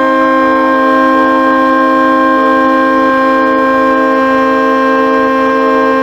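Ice hockey arena goal horn blasting one loud, steady, multi-tone chord.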